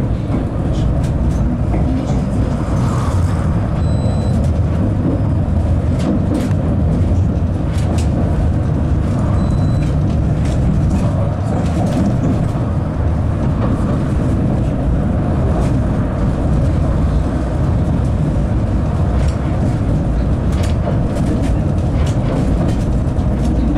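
A 71-931M Vityaz-Moscow tram running along the line, heard from inside the car: a steady rumble of wheels on the rails, with scattered clicks and knocks.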